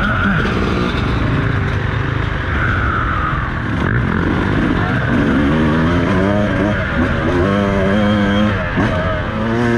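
Beta 200RR two-stroke enduro motorcycle being ridden, its engine note rising and falling with the throttle over a steady rumble of wind and ground noise. The changes in engine pitch are plainest from about five seconds in.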